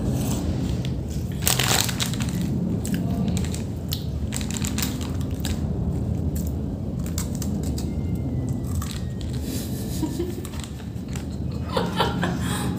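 Chewing and crunching of food close to the microphone, heard as irregular crisp crackles over a steady low hum.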